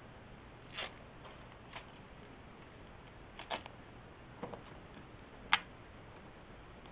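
Small objects handled on a desk: a handful of short, sharp clicks and taps, the loudest about five and a half seconds in, over a faint steady hiss.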